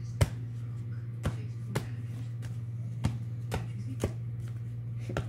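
Pokémon trading cards handled by hand: about seven sharp snaps and clicks as the cards are flicked and sorted, the loudest a quarter second in, over a steady low hum.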